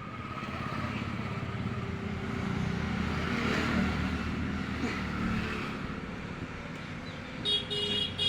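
A road vehicle's engine passing by, growing louder and then fading. Near the end a vehicle horn begins to honk.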